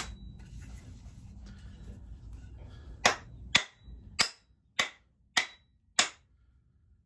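Wooden mallet striking the head of a carpenter's axe on its slip-fit handle, six sharp knocks about 0.6 s apart, seating the head. Faint handling noise comes before the knocks.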